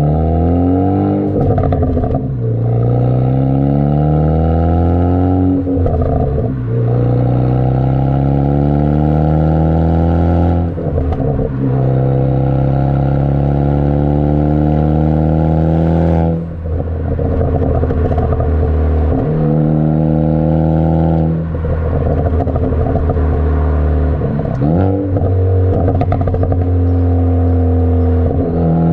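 Ford Focus ST's turbocharged 2.0-litre four-cylinder heard at its Borla cat-back exhaust, accelerating through the gears: the pitch climbs in pulls of about four seconds, each ending in a brief break with crackles as the throttle lifts for the shift, from the pops-and-crackles tune. In the second half the engine note holds steadier, still broken by a couple of shifts.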